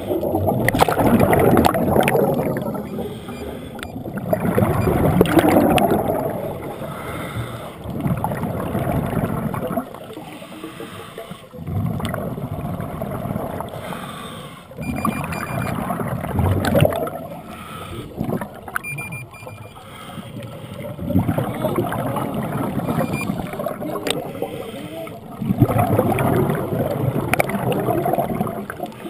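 Scuba regulator breathing underwater: a swelling gurgle of exhaled bubbles every four to five seconds, with quieter gaps between breaths.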